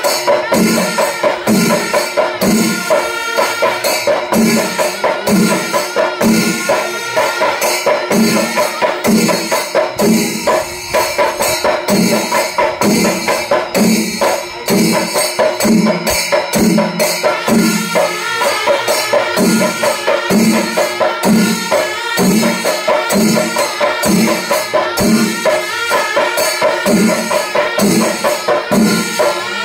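Kerala panchavadyam temple ensemble playing: drums keep a steady beat a little over once a second under dense, continuous clashing of small hand cymbals.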